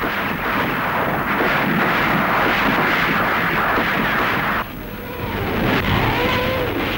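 Battle sound effects: a dense, loud rumble of tank engines and gunfire. About two-thirds of the way through it drops suddenly to a thinner rushing sound of a rocket-launcher salvo, with a faint whistle.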